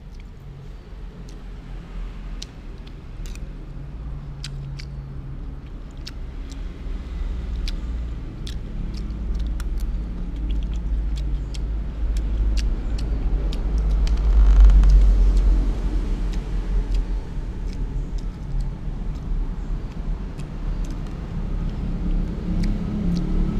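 A low rumble like a passing motor vehicle, building to its loudest about halfway through and then easing off. Scattered light clicks of a metal spoon against a glass plate run through it.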